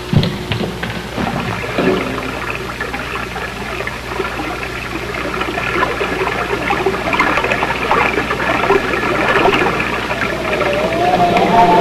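Bubbling, gurgling water sound effect that slowly grows louder, opening with a sudden thump. A wavering musical tone comes in near the end.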